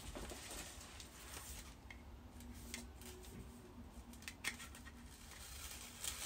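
Faint, scattered clicks and rustles of a skincare product's packaging being handled while someone struggles to get it open.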